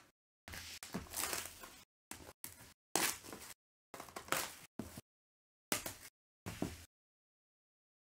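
Plastic shrink wrap on a trading-card hobby box being slit with a folding utility knife and peeled off by hand. The cellophane crinkles and rustles in short, irregular bursts, which stop about seven seconds in.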